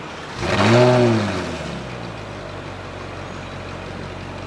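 Ferrari 458 Italia's 4.5-litre V8 through a Fi Exhaust valved, catless system with the valves open: a single brief rev about half a second in that rises and falls back within a second, then a steady idle.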